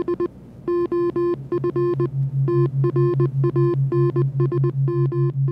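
Electronic outro sound: a run of short and longer synthesized beeps, with a low synth tone joining about a second and a half in and pulsing about four times a second.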